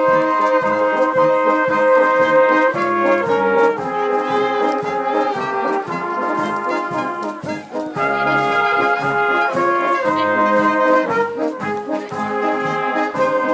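Brass band music: several horns playing sustained chords in a melody, the notes changing every second or so.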